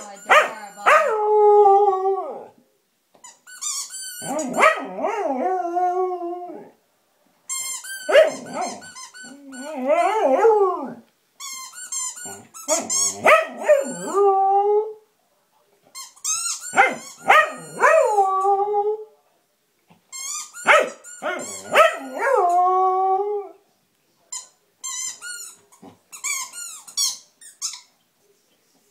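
A Samoyed squeaking a rubber squeaky ball in its mouth and howling at it: runs of short high squeaks, each followed by a long howl that starts high and settles lower, six howls in all. Near the end come squeaks with no howl.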